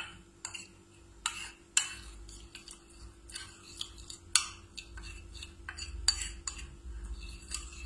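Metal spoon stirring and scraping a thick spice-and-lemon marinating paste in a small ceramic dish, with irregular clinks and scrapes of the spoon against the dish.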